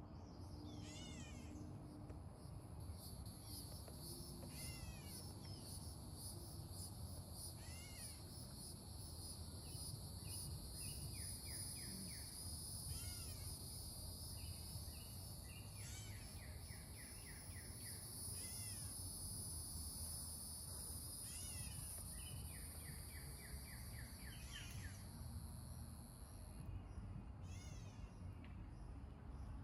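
Birds calling with short, repeated downward-sweeping notes and quick rattling trills. Under them runs a steady high-pitched insect drone that stops near the end, along with a low, even rush of flowing spring water.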